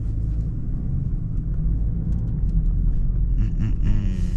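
Cabin sound of a 2020 BMW 330i's turbocharged four-cylinder pulling through a turn: a steady low engine and road rumble that steps up in level at the start and then holds.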